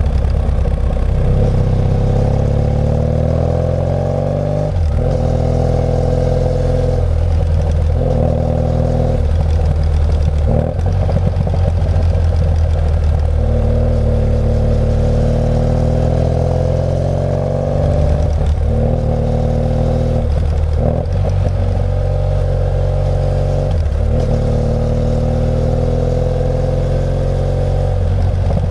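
BMW F800GS's parallel-twin engine riding on, its pitch climbing and then breaking off about half a dozen times as the rider works the throttle and changes gear through the bends.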